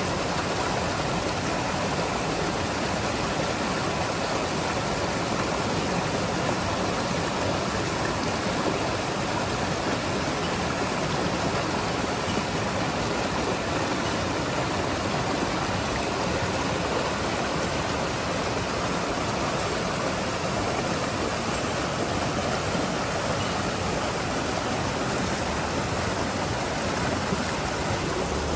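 Small rocky stream rushing and splashing over stones, a steady close-up rush of water.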